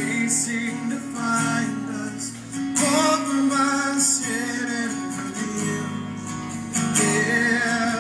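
Live music: a man singing a slow song with held, drawn-out notes over steady instrumental accompaniment.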